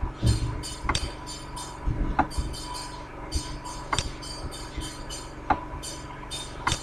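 Computer mouse clicking about five times, roughly once every second or so, over a steady electrical hum and hiss.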